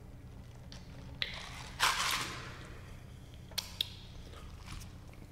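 A man drinking from a paper fountain-drink cup: quiet mouth and swallowing sounds, a short rush of breathy noise about two seconds in, and a few small clicks.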